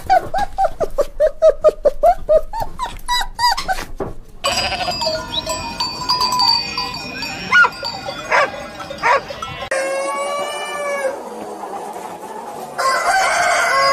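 A run of different animal calls, one after another: a dog whining in quick short calls, then sheep bleating, then chickens calling with a series of falling calls.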